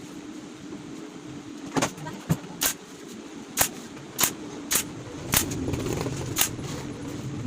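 A series of sharp knocks, about eight spaced irregularly half a second to a second apart, from work on a flight case, over a steady low hum; a low rumble comes in about five seconds in.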